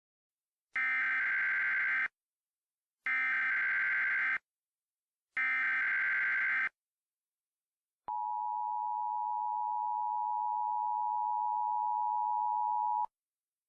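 Emergency Alert System tones. First come three short bursts of the SAME header's digital data tones, about a second apart. Then the steady two-tone attention signal sounds for about five seconds and cuts off sharply. This is the sequence that announces an emergency broadcast message.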